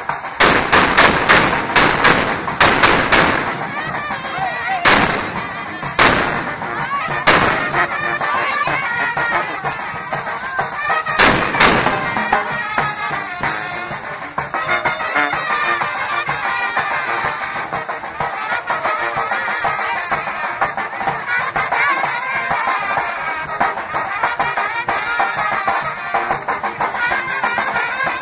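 Fireworks on a burning castillo: a rapid string of firecracker bangs for the first few seconds, then single bangs about five, six, seven and eleven seconds in. Brass band music plays throughout.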